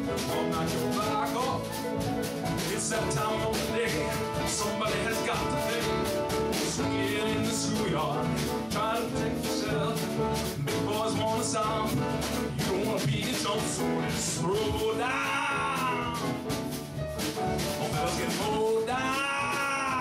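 A man singing live with piano accompaniment, holding wavering notes with a wide vibrato twice in the second half.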